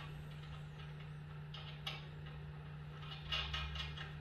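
Faint metallic clicks and ticks of a bolt being turned finger-tight in an engine stand's mounting plate: one click about two seconds in and a quick cluster near the end, over a steady low hum.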